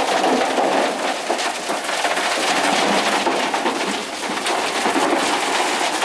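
Chunks of hardened concrete, chipped off the mixing fins inside a concrete mixer truck's drum, clattering and rattling as the drum tumbles them out and down the discharge chute onto a pile. It is a dense, continuous clatter of many small knocks.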